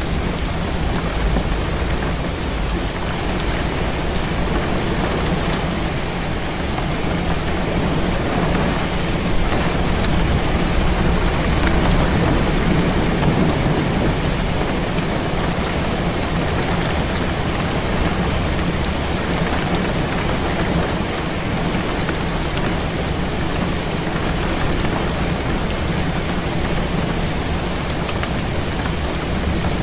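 Heavy rain falling steadily against a window, with a low rumble of thunder swelling and fading in the middle.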